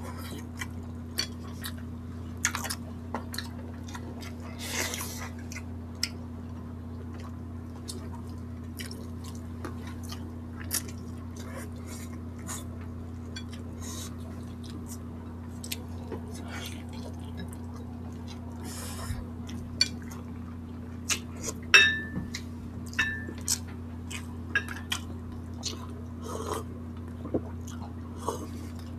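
Close-miked eating of boiled chicken on the bone and rice by hand: many short wet smacks and clicks of chewing and lip smacking, with occasional light knocks of fingers and food on plates and glass bowls, over a steady low hum.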